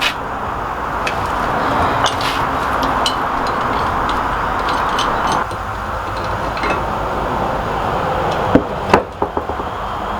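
Scattered light clicks and knocks of a steel post vise and tools being handled, with two sharper knocks a little before the end, over a steady rushing background noise.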